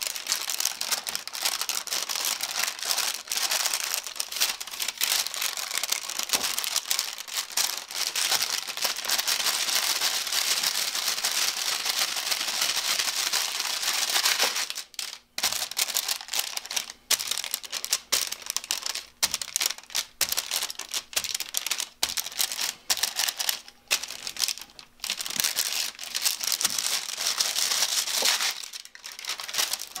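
Paper crinkling and rustling as hands press and smooth it flat and work a glass jar over it on a wooden bench, with short pauses about halfway through and near the end.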